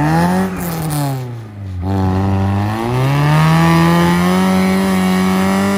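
Off-road car's engine revving hard under load. It climbs sharply at the start and falls back within about two seconds. Around the middle it climbs again and holds high.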